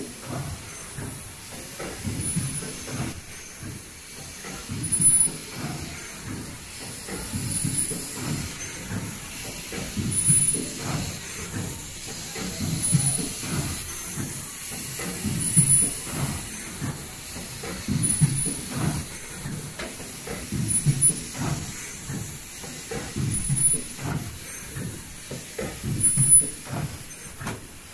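Automatic folding N95 mask production line with valve welding, running and cycling about once every two seconds. Each cycle brings knocks and a low rumble, and short high-pitched tones repeat on the same beat.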